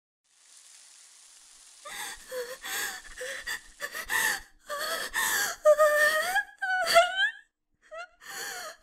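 A faint hiss, then a woman gasping in short, broken bursts and breaking into high wails that rise in pitch, a sound of anguish.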